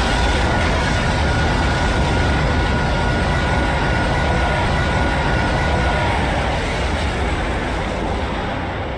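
A loud, steady roaring noise with a deep rumble, fading a little near the end.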